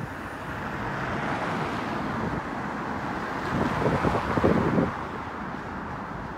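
Silverliner V electric multiple-unit commuter train running across a stone railway bridge: a steady rushing rumble that grows a little louder, with wind buffeting the microphone around four seconds in.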